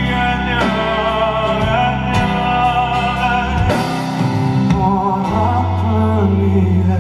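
Live band music with singing: bass, drums and keyboard under a voice holding long, wavering notes.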